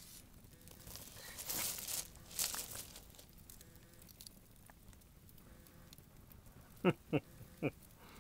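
Wood campfire crackling, with a cluster of sharper pops and crackles in the first three seconds. About seven seconds in come three quick squeaks, each sliding sharply down in pitch, the loudest sounds here.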